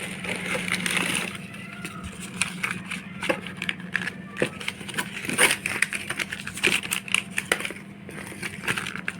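Delivery packaging being opened and handled by hand: rustling and crackling with many scattered sharp clicks, over a steady low hum.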